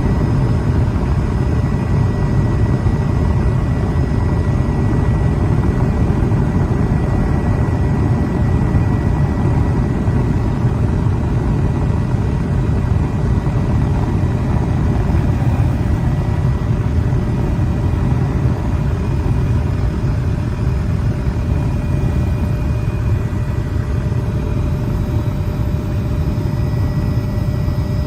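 Steady low drone of an aircraft in flight, with a faint steady whine above it.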